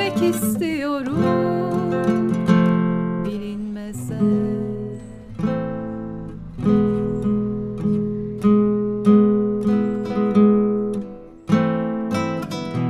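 Classical guitar fingerpicked, each chord ringing and fading before the next is struck. A sung note trails off about a second in.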